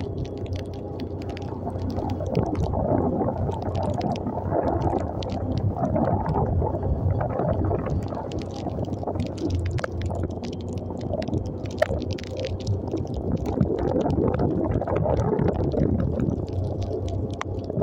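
Motorcycle engine running at a steady cruise while riding on a wet road, buried in heavy wind rumble on the microphone, with scattered sharp ticks throughout.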